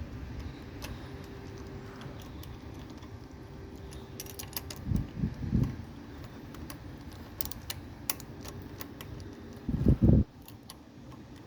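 Small metal clicks and clinks of a socket wrench and socket on engine bolts being handled, with a few dull knocks around five seconds in and again near ten seconds.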